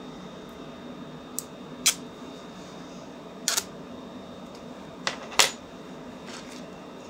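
About six sharp clicks and taps from small plastic printer parts and a tape pack being handled on a desk; the loudest are about two, three and a half and five and a half seconds in. A steady low hum runs underneath.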